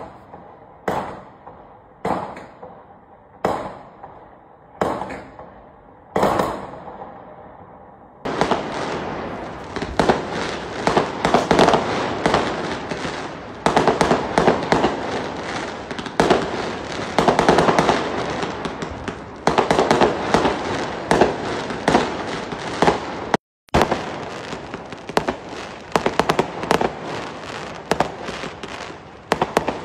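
Fireworks display: about six single aerial shell bursts go off a little over a second apart, each bang fading away. About eight seconds in, a dense finale-style barrage of rapid bangs and crackling takes over, louder and continuous.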